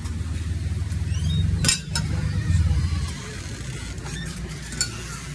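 Low, uneven rumble of wind and handling on a phone microphone carried while walking, with a short rising squeak and then a sharp click a little under two seconds in.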